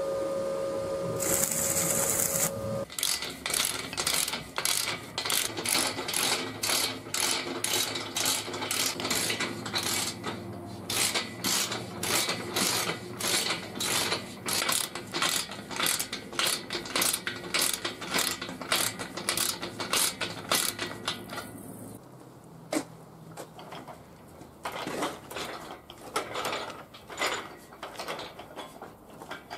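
Stick-welding arc crackling and hissing for the first two seconds or so. Then a ratchet wrench clicks steadily, about two clicks a second, turning the screw levellers of the table's adjustable casters. The clicks grow fainter and sparser near the end.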